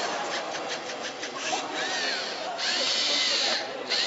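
Small electric motors of a LEGO competition robot whining as it drives and turns, the pitch rising and falling as they speed up and slow down. A quick run of clicks comes within the first second and a half.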